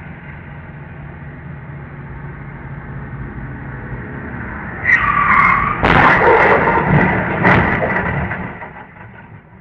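Tyres screeching in a skid, then about a second later the loud crash of a vehicle collision, with a second bang and clattering debris that die away near the end.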